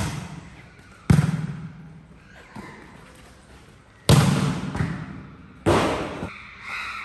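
A volleyball being hit back and forth by hand: sharp slaps on the ball, each with a short echo. There are about six, and the loudest come about a second in and about four seconds in.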